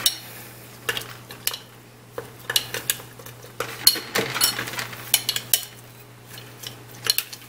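A utensil stirring curry paste and hot water in glass mason jars, clinking and scraping against the glass in quick irregular clicks.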